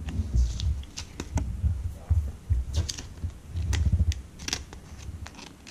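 Trading cards and foil card packs being handled: irregular soft thumps with scattered sharp clicks and crinkles.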